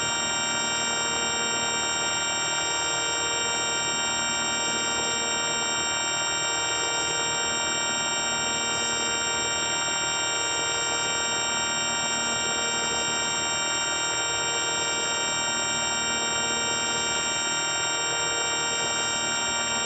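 Steady electronic drone of many sustained tones held at once, with a faint slow pulsing about every two seconds; the 4ormulator V1 sound effect.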